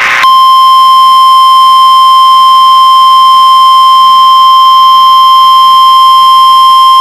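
Emergency alert attention signal: a burst of loud static hiss breaks off a quarter second in, and a single steady, high electronic tone takes over, held unbroken and very loud. The tone announces the alert message that follows.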